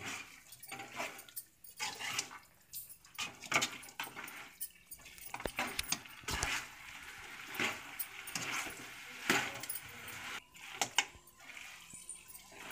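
Metal spoon scraping and clinking against a metal kadai as chunks of chicken fry are stirred and turned, in irregular strokes about once or twice a second.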